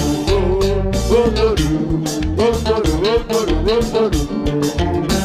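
Live konpa (Haitian compas) band music: a steady percussive beat under a bass line and a bending melodic lead.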